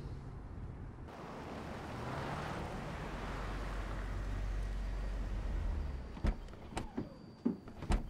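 Car pulling up and stopping: tyre and engine noise swells, then dies away about six seconds in. A series of sharp clicks and knocks follows as a car door is opened and someone climbs out.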